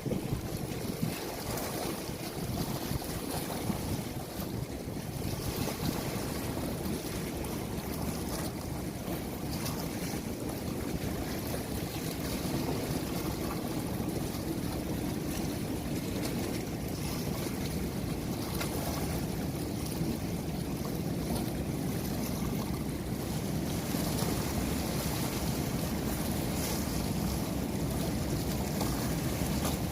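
Steady rush of moving water, with wind buffeting the microphone.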